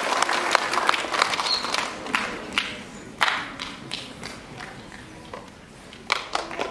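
Audience applause fading out over the first two or three seconds, leaving a few scattered claps and thuds.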